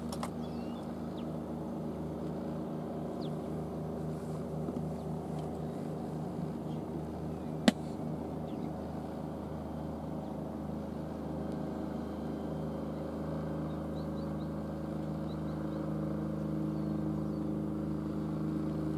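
A boat's engine running steadily, its hum growing slightly louder near the end, with one sharp click about eight seconds in.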